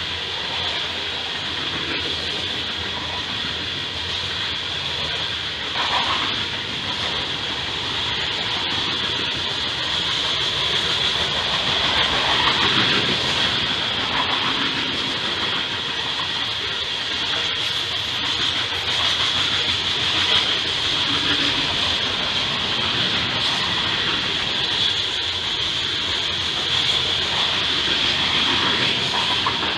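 Freight train of coal hopper cars rolling past: a steady rumble of wheels on rail with a continuous high hiss over it.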